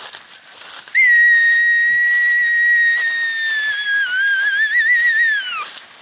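A person's long, loud whistle: one held note that starts about a second in, stays level for about three seconds, then wavers and slides down before stopping.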